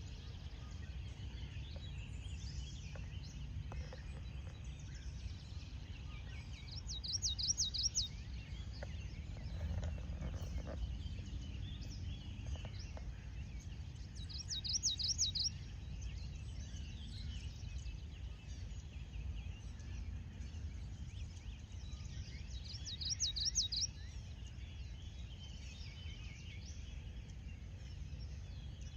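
Birds singing: one bird repeats a short, high phrase of rapid notes about every eight seconds, three times, while others chirp faintly throughout over a steady low rumble.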